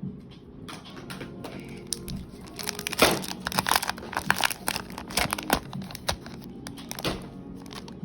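Rummaging through a pile of pens and packaging: irregular plastic clicks and knocks with crinkling, busiest from about three seconds in.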